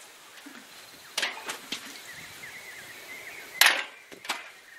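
Balls thrown in quick succession hitting drink cans and knocking them off a plank: about five sharp knocks and tinny clatters, the loudest a little past halfway.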